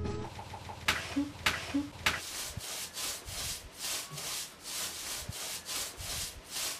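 Potter's clay being kneaded and rubbed by hand against a board: a steady run of scraping strokes, about two to three a second, after a few sharp taps in the first two seconds.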